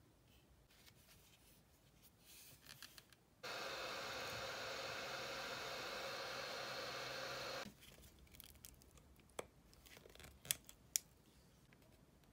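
Heat gun blowing hot air onto a plastic drill battery case: a steady rushing hiss that switches on about three seconds in and cuts off about four seconds later. Faint handling of the pack before it and a few sharp clicks after it.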